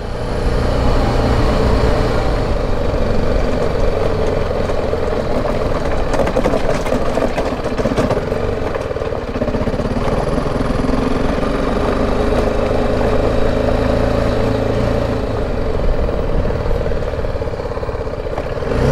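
BMW G 310 GS motorcycle's single-cylinder engine running steadily as the bike is ridden along a rough lane, with road noise underneath.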